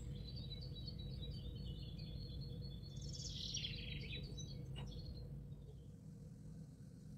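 Small birds chirping in quick trills, stopping about five seconds in, over a low steady hum.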